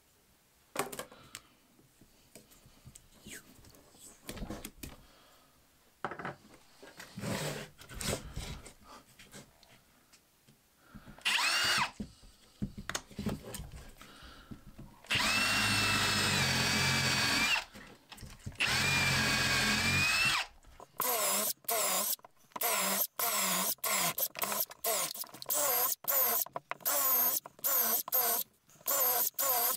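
AEG cordless drill boring a series of holes into a firewood log slab. After some light handling clicks and knocks, the drill runs in two longer spells, then in many short quick bursts, each starting with a rising whine as the motor spins up.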